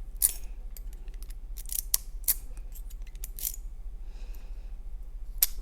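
Sharp metallic clicks and clinks from an Ingersoll 10-lever padlock's core and parts being handled just after the core is pulled from the body, a scattered handful spread over several seconds.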